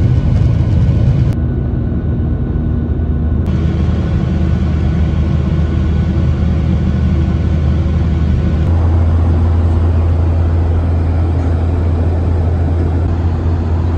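Steady low drone of a Boeing 737-800 in flight, heard inside the cabin: engine and airflow noise. The tone shifts abruptly about a second and a half in, again a couple of seconds later, and once more past eight seconds, where the low hum grows stronger.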